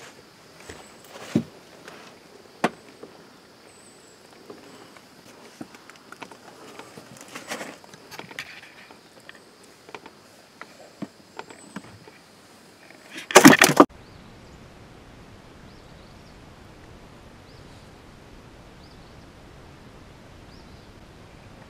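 Scattered small knocks and clicks of a crappie and tackle being handled in a fishing boat after landing, over a steady high insect drone. About thirteen seconds in comes a loud, brief rustling bump, after which only an even hiss with faint high chirps remains.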